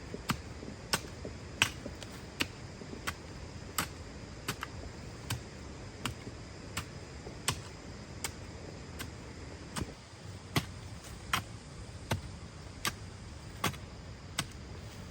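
Regular sharp knocks, about one every three-quarters of a second, keeping an even rhythm throughout.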